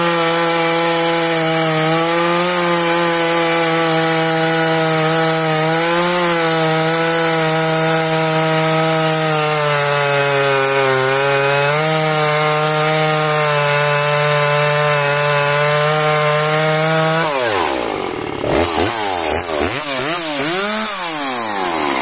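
Husqvarna 345 chainsaw's 45 cc two-stroke engine running at high revs while cutting through a log round, its pitch sagging slightly now and then under load. About three-quarters of the way through, the revs drop and the engine is then revved up and down several times.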